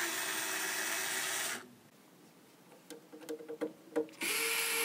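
Bosch cordless drill/driver backing out screws that hold a circuit card. One steady run of about a second and a half is followed by a few light clicks as the bit is set on the next screw, and a second run starts near the end.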